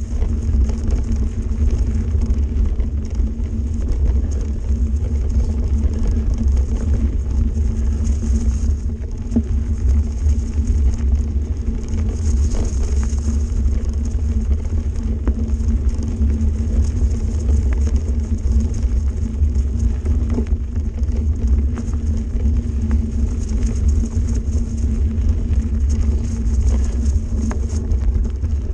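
Mountain bike riding along a dirt forest singletrack, heard from a camera mounted on the bike: a steady, loud low rumble of the tyres on the trail and the ride's vibration.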